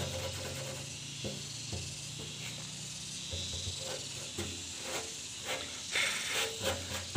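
Soft gritty hiss of a hand rubbing and pressing fine soil into glue on a metal fuel tank, with a few faint scratches.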